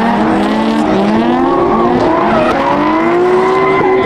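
Several car engines revving at once, their pitches climbing and falling over a second or two, with tires squealing: cars drifting.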